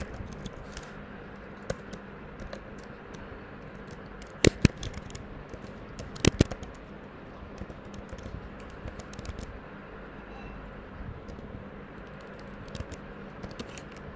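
Typing on a computer keyboard: irregular key clicks, with a few louder clicks about four and a half and six seconds in.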